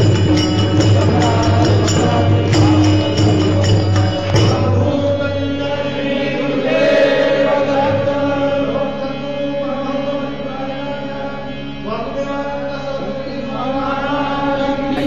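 Devotional music: chanted singing over long held instrumental notes. A steady beat of sharp metallic clicks runs for the first four seconds or so, then stops as the music changes to slower sustained notes.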